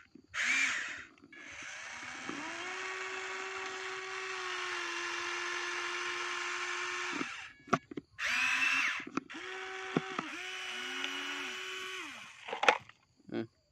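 Toy remote-control excavator's electric gear motors whining steadily as its arm and bucket move. The whine runs for about five seconds, stops, then runs again for a couple of seconds about ten seconds in, with a few sharp clicks in between.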